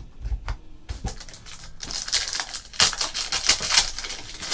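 Trading cards being handled and shuffled on a table: scattered clicks and taps, then a busier stretch of rustling and clicking from about two seconds in.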